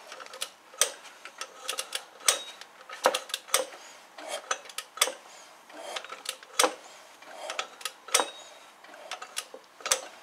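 Sharp metallic clicks and clinks at irregular intervals, about one or two a second, as the Porsche 944 Turbo's 8-valve engine is turned over by hand with the camshaft newly refitted.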